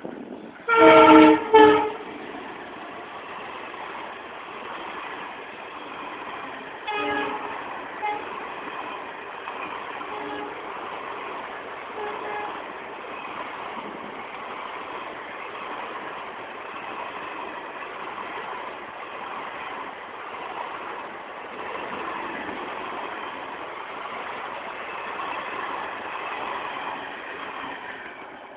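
Horn of a WDP4B diesel locomotive hauling an express train: a loud blast about a second in that breaks into two parts, then two short toots at about seven and eight seconds. Between and after the horn, the train runs past with a steady rushing noise that lasts until the end.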